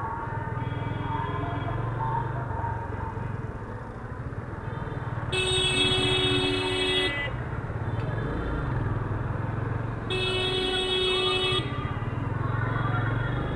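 Yamaha FZ-25's single-cylinder engine running on the move, with road noise, while a vehicle horn honks twice, about five and ten seconds in, each blast about a second and a half long and louder than the engine.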